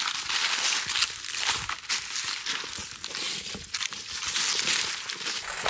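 Footsteps through dry fallen leaves: an irregular run of crackling, crunching steps.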